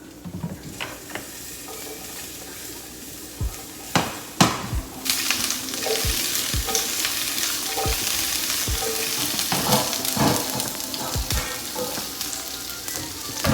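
Potato pieces frying in hot oil in a wide pan, sizzling, with a utensil stirring and knocking against the pan. The sizzle grows much louder about five seconds in.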